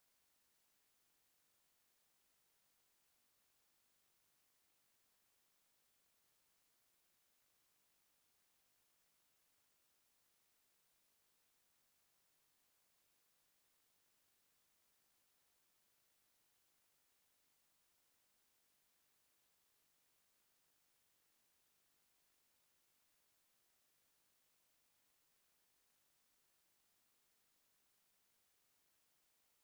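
Near silence: the track is essentially silent, with no audible key presses or other sounds.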